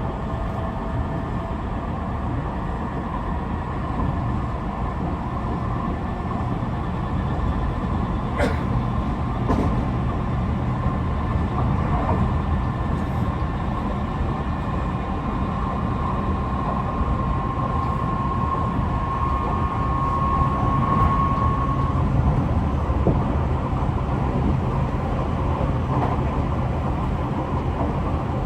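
Interior running sound of a Tobu 50090-series electric commuter car underway between stations: a steady rumble of wheels and running gear, with a faint motor whine that climbs a little in pitch about two-thirds of the way through, and two sharp clicks about a second apart near the first third. The uploader says this car's motors make a slightly unusual sound, perhaps because they are a different type from the rest of the set.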